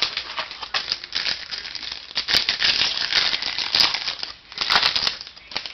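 Foil wrapper of a 2007 SP Authentic football card pack crinkling and crackling as hands pull it open and crumple it. The crinkling is densest from about two to four seconds in, with another loud spell around five seconds.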